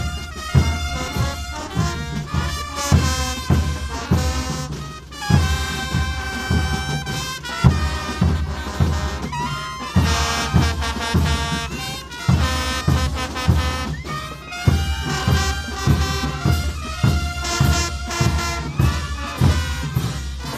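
Marching brass band playing a tune: trumpets, trombones and low brass horns over a steady drum beat.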